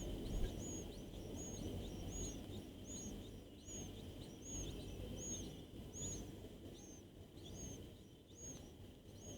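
A bird calling with one short, high note repeated evenly, nearly twice a second, over a low steady background rumble.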